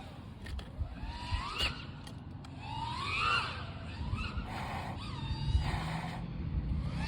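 GEPRC Vapor X5 five-inch FPV quadcopter's motors whining, the pitch sweeping up and down several times with throttle changes, over a low wind rumble.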